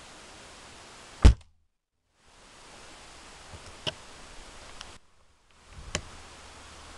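An air rifle firing a single sharp shot about a second in. A few faint clicks follow, then a weaker sharp knock near the end, over a steady hiss.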